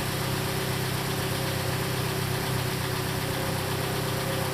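2013 Hyundai Elantra GT's four-cylinder engine idling steadily.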